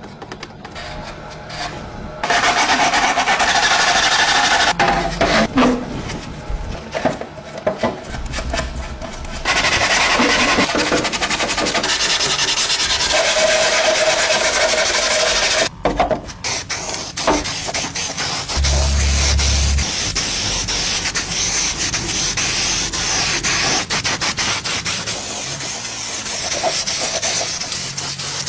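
Abrasive sanding and rubbing on parts of the bike, in several continuous stretches that change abruptly from one to the next.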